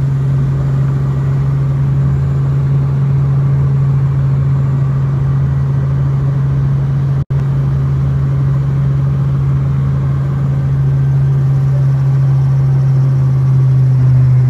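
Robinson R44 helicopter's six-cylinder piston engine and rotors running at a steady, loud drone, heard from inside the cabin while hover-taxiing low over the ramp. The sound cuts out for an instant about halfway through.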